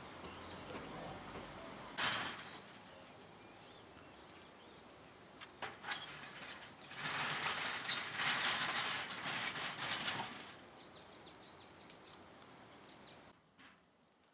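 Small birds chirping in short, rising notes repeated every second or so, over a steady outdoor hiss. There is a sharp knock about two seconds in, and a louder rustling noise lasts about three seconds in the middle.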